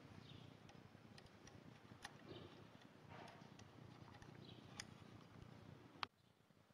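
Faint, sparse clicks and light metal taps of screws and a tool being worked into a gear housing cover; the sound cuts off abruptly near the end.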